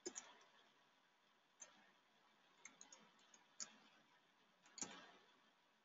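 Near silence with a few faint, irregular clicks from a computer keyboard and mouse.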